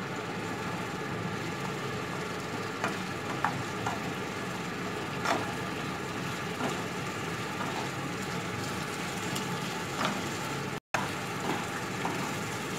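Wooden spatula stirring paneer and vegetables in a non-stick pan, knocking and scraping on the pan a handful of times over a steady mechanical hum. The sound cuts out for an instant near the end.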